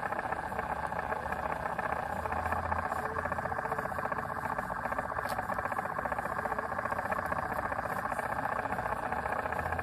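Small electric motor of a cup turner running steadily: an even, fast whir that holds unchanged throughout.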